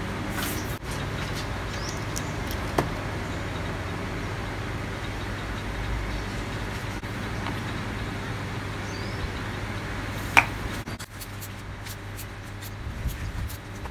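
Steady low rumble of background noise, with two sharp clicks about three and ten seconds in; the rumble drops away about eleven seconds in.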